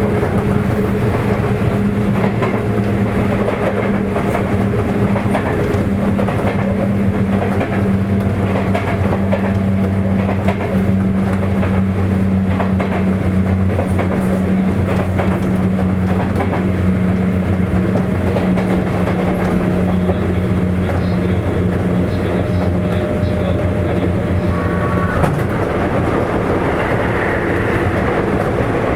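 Running sound inside a motor car of a Sotetsu 8000 series electric train refitted with Hitachi IGBT-VVVF control: a steady motor and inverter hum over wheel and rail rumble, with wheels clicking over rail joints. The steady hum drops away about 25 seconds in.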